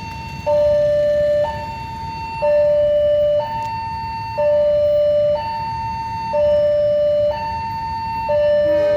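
Railway level-crossing warning siren sounding a steady two-tone alarm. A lower and a higher tone take turns about once a second, and the lower tone is the louder.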